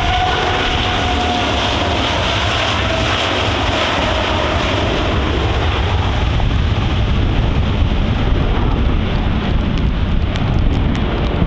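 Boeing 787 Dreamliner's twin turbofan engines at takeoff power during the takeoff roll: a steady, loud jet roar, with a whine that slides slightly down in pitch over the first few seconds as the aircraft passes.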